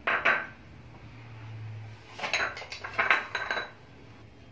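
Steel kitchen utensils clinking and clattering against each other: one short clatter at the start, then a quick run of clinks about two seconds in.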